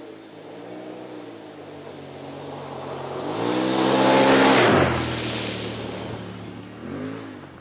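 Polaris RZR 900XP's twin-cylinder engine revving up and down as the UTV is driven past, loudest about four to five seconds in with a rush of noise, then fading away.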